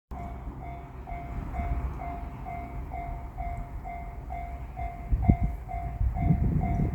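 Japanese railroad crossing alarm ringing its evenly repeated two-tone clang at about two strikes a second. Under it, a low rumble grows louder with a few thumps from about five seconds in as a train approaches.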